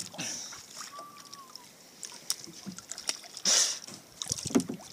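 Water splashing and sloshing around a small boat, with scattered knocks on the hull and one louder splash about three and a half seconds in.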